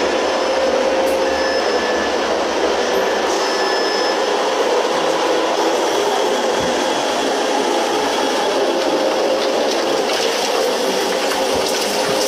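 Steady din of tyre-factory machinery, an even noisy drone with a few faint steady tones over it.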